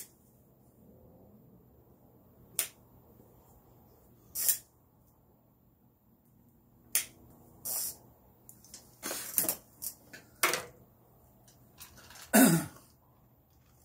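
Short puffs, smacks and clicks of a cigar being drawn on and lit with a long butane stick lighter: a dozen or so separate brief sounds, roughly a second apart, the loudest near the end, over a faint steady hum.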